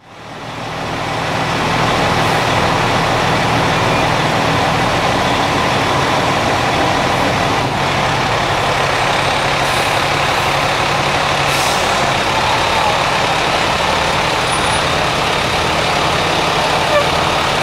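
A fire engine's diesel engine running steadily as the truck rolls slowly past close by, fading in over the first couple of seconds.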